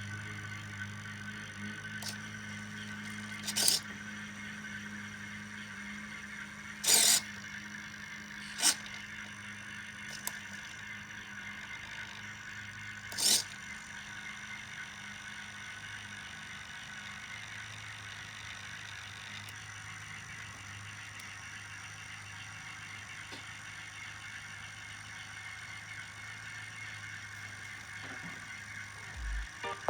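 Model railroad running with a steady electric hum, broken by a few sharp clacks about 4, 7, 9 and 13 seconds in.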